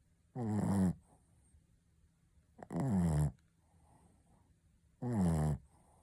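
Shih Tzu snoring: three loud, short snores about two and a half seconds apart, each dropping in pitch, with faint breathing between them.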